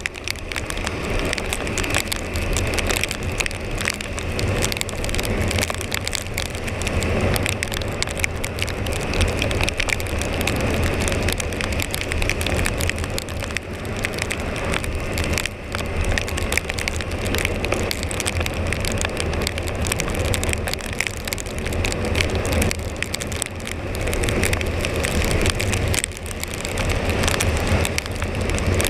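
Husqvarna Svartpilen 401's single-cylinder engine running through its stock exhaust while riding, with rain and spray crackling steadily on the microphone.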